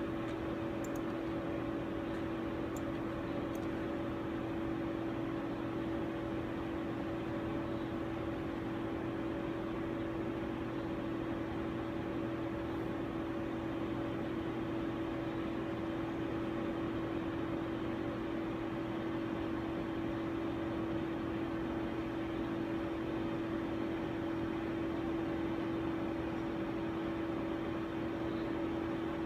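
Steady machine hum and whir with a constant mid-pitched tone, unchanging throughout, from running laboratory equipment.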